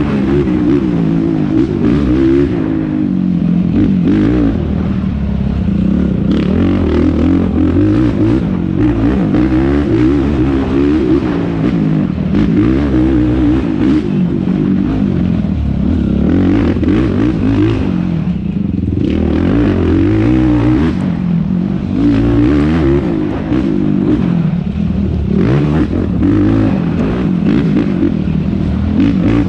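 Yamaha YFZ450R quad's single-cylinder four-stroke engine racing flat out over off-road terrain, its revs rising and falling continuously as the throttle opens and closes, with a brief let-off about two-thirds of the way through.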